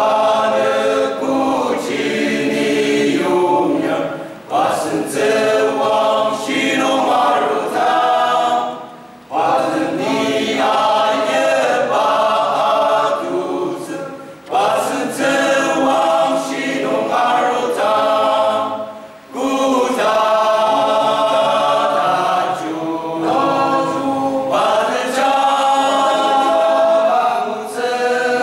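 Male-voice choir singing church music unaccompanied, in phrases of about five seconds with short breaks between them.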